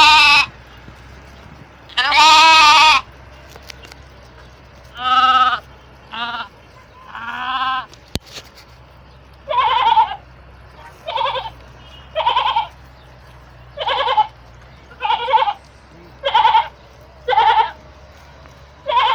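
Sheep bleating: a series of separate, quavering bleats, one longer bleat near the start, then from about halfway a run of short bleats roughly one a second.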